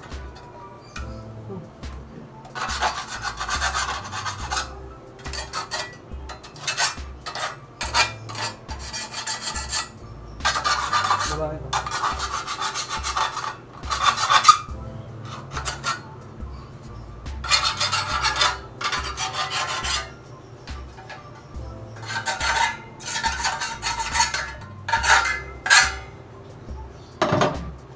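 Hand file rasping along the cut edges of metal conduit, in runs of quick strokes lasting a second or two with short pauses between. The edges are being deburred so they won't damage the wire when it is pulled through.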